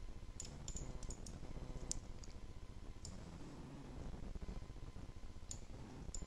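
About ten sharp, irregular clicks of a computer mouse, the loudest about two seconds in, with a pause in the middle, over a low steady background hum.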